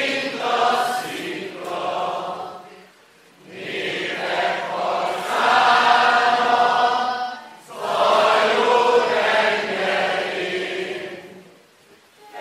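Large crowd singing together in slow, held phrases of about four seconds each, with short breaks for breath between them.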